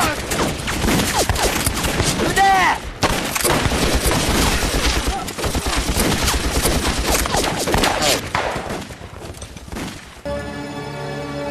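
Dense battle gunfire: many rapid rifle and machine-gun shots overlapping, with men's cries mixed in. The shooting thins out, and dramatic music comes in near the end.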